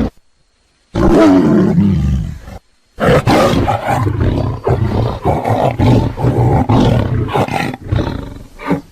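Tiger roaring: after a brief silence, one roar falling in pitch, then after a short pause a longer run of roars in quick succession.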